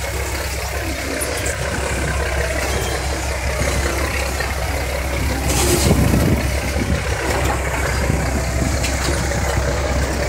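A river ferry boat's engine running steadily with a low hum, under a wash of water and wind noise; a brief louder rush of noise comes about six seconds in.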